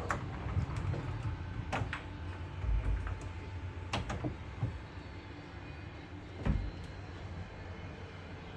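Wardrobe door being opened and handled: a few sharp clicks and knocks and two dull thumps, over a steady low hum.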